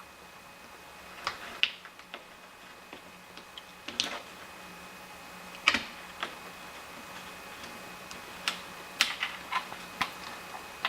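Scattered sharp clicks and light scrapes of a small tool working at a sealed chainsaw crankshaft ball bearing, prying out its removable seals. The clicks come singly or in short clusters, a second or more apart.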